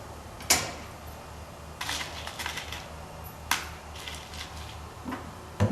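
Scattered sharp clicks and taps of fastener hardware being handled and fitted against the truck bed's sheet-metal front wall, with a duller thump near the end, over a steady low hum.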